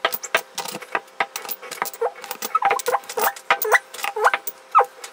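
Small glass hot-sauce bottles with plastic caps being set down on a table one after another, clinking against the table and each other in quick irregular clicks, with a few short squeaks.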